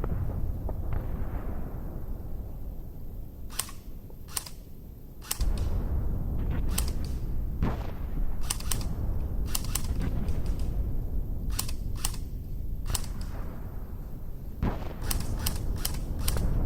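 Airsoft guns firing scattered single shots: sharp cracks at irregular intervals, some in quick pairs or short runs of three or four, over a steady low rumble.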